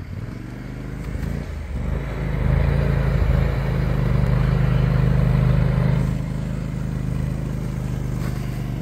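Amphibious ATV's engine running as it drives through the water, with the splash of its wake. It gets louder as it passes close, about two seconds in, and eases off after about six seconds as it heads away.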